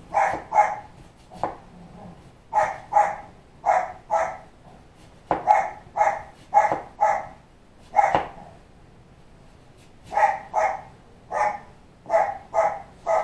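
A puppy barking over and over, short sharp barks that often come in quick pairs, with one pause of about two seconds past the middle.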